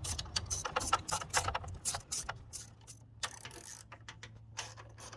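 Hand ratchet clicking in quick, irregular strokes as it backs out a 10mm screw. The clicks come thick for about two seconds, then thin out.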